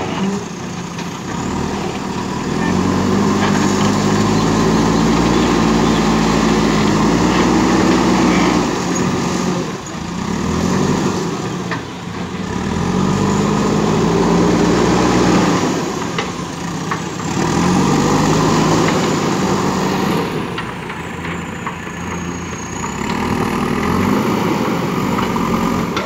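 JCB 3DX backhoe loader's diesel engine working under load as the front loader bucket moves soil. It revs up and holds for a few seconds, then drops back, about four times over.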